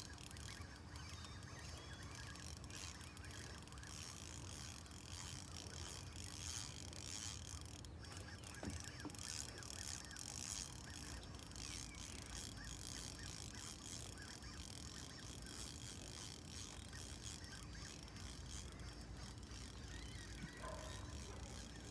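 Fishing reel being cranked, its gears and ratchet clicking steadily as a hooked fish is reeled in against a bent rod.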